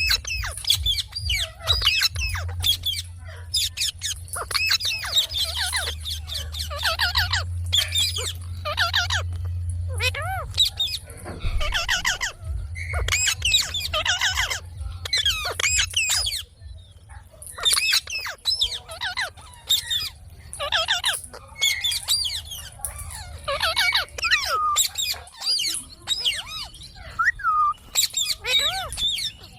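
Indian ringneck parakeet chattering and squawking: many short, high-pitched calls with sliding pitch, some of them speech-like, over a low steady hum.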